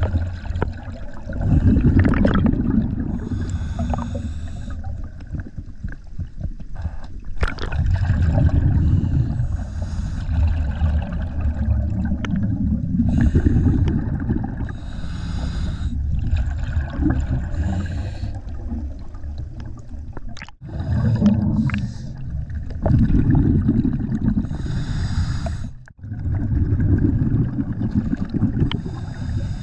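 Scuba diver breathing through a regulator underwater: a hiss on each breath in, then rumbling, gurgling bubbles on each breath out, repeating every few seconds.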